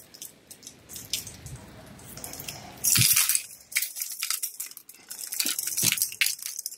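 Handling noise while walking: rustling of a nylon jacket and a plastic grocery bag against the phone, with scattered small clicks and clinks and a louder rustle about three seconds in.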